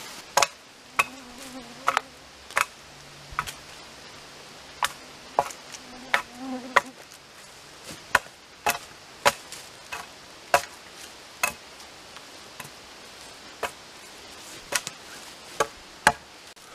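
Hatchet chopping into a thin sapling, about twenty sharp strikes on the wood at an uneven pace of one or two a second. An insect buzzes close by twice, early on and about six seconds in.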